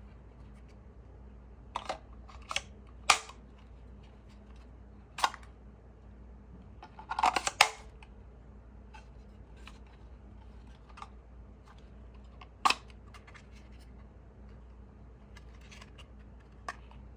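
Sharp hard-plastic clicks and knocks as a drone flight battery and its plastic charging hub are handled. The clicks come one at a time, with a quick rattle of several about seven seconds in.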